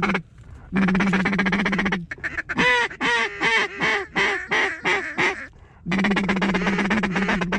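A mallard duck call blown to work circling mallards. Two long raspy, rapidly ticking runs, then a string of about eight quacks stepping down in pitch, then another long raspy run near the end.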